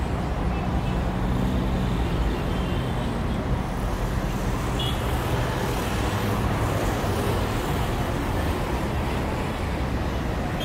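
Steady road traffic: cars driving past, with a low engine hum.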